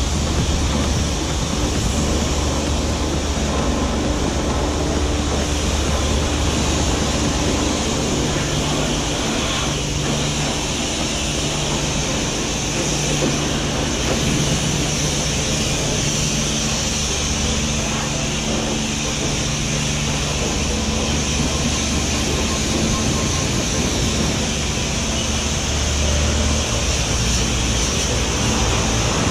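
High-pressure car-wash lance spraying water onto a kayak on a car roof: a steady loud hiss with the wash station's pump humming underneath. Some of the spray strikes the camera housing.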